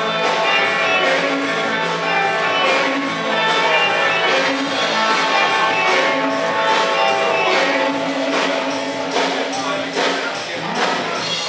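Music with a steady beat and pitched instruments, perhaps with some singing.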